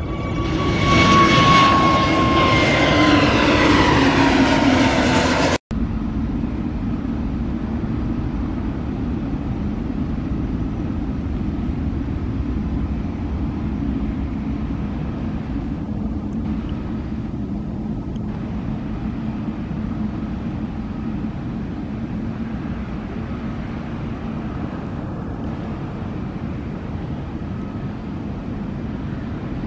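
Twin-engine jet airliner climbing out after takeoff: loud engine noise with a whine that falls in pitch as it passes, cut off suddenly about five and a half seconds in. A steady, quieter jet rumble follows as another airliner comes in on approach to land.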